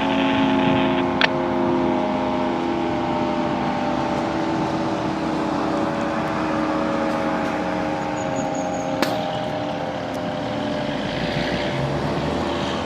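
Fire station's general fire siren sounding its fire-alarm signal during a siren test, a steady multi-toned wail whose pitch slowly sinks as it winds down. Two brief clicks come about a second in and again near nine seconds.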